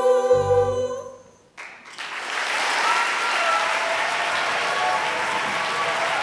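A children's chorus holds the final chord of a song, which dies away about a second in; after a brief lull an audience breaks into steady applause.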